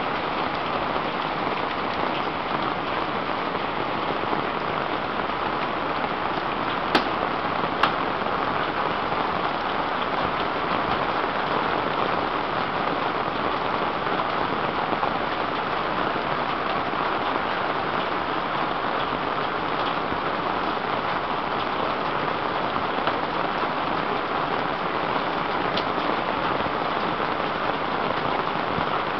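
Heavy rain falling steadily, a dense even hiss, with two sharp clicks about seven and eight seconds in.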